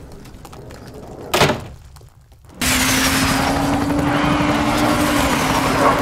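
A door slams about a second and a half in, followed by a brief hush. Then a loud, dense din starts suddenly, with a steady low drone under it and a high whistle falling in pitch.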